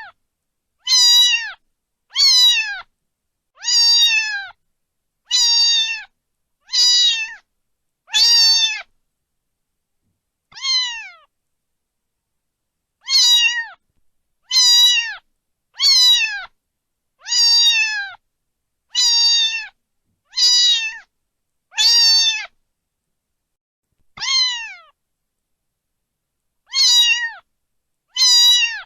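A cat meowing over and over, roughly one meow every second and a half, each call dropping in pitch at its end, with two longer pauses between runs.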